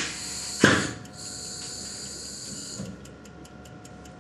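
Pressure test rig being raised in pressure to calibrate a circular chart recorder: two short, sharp hisses near the start, a steady hiss, then a quick, even run of clicks near the end.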